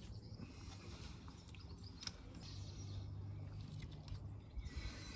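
Faint outdoor background: a low steady hum that swells for a couple of seconds in the middle, with a few light clicks.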